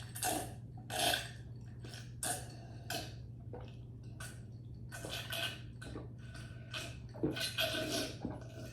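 Close-miked eating sounds: irregular wet smacks and squelches of chewing a green-lip mussel, over a steady low hum.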